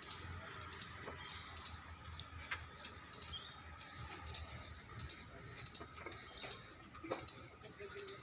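Short, high-pitched chirps or squeaks from a small animal, repeating steadily about every three-quarters of a second, often in quick pairs.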